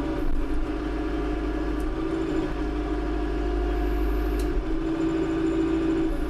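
Tractor diesel engine running steadily, a deep drone with a steady hum over it.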